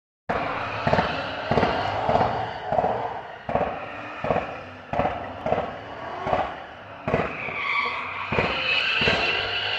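Car exhaust letting off a string of loud, gunshot-like bangs over the running engine, roughly one to two a second. A higher, drawn-out screech joins in near the end.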